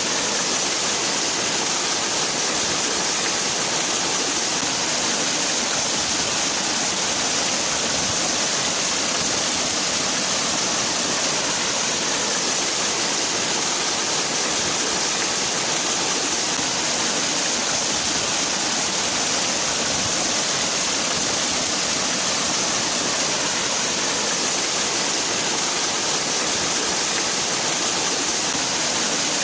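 Waterfall: water falling and splashing in a steady, unbroken rush, with a bright hiss in the highs.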